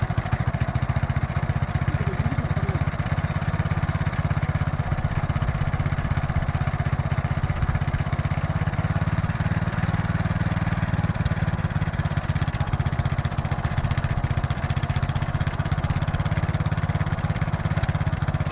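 Vehicle engine idling steadily, heard close at the tailpipe as a rapid, even puffing of exhaust.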